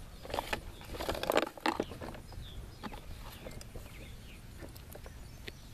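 Small trash items (cardboard, plastic bits, a bag) clattering and rustling as a homemade toy dumpster is tipped into a plastic toy garbage truck's hopper: a cluster of clicks and crunches in the first two seconds, then faint scattered taps. Wind rumbles on the microphone throughout.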